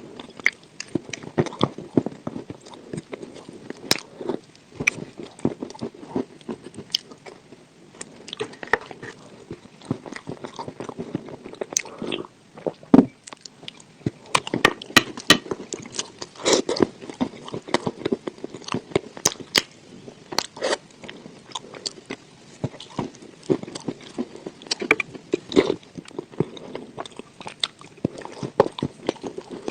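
Close-up crunching and chewing of dry edible clay eaten with sour cream: irregular sharp crunchy bites with chewing between them, louder clusters of crunches coming every few seconds.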